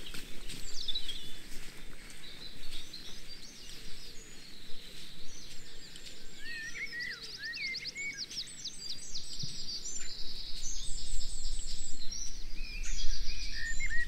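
Several wild songbirds singing and calling together, with chirps, short sweeping notes and quick trills. A low rumble builds near the end.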